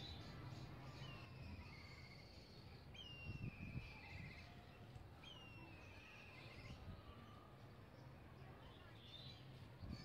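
Kites calling three times, about two seconds apart, each call a high whistle sliding down into a quavering trill. A faint low hum runs underneath.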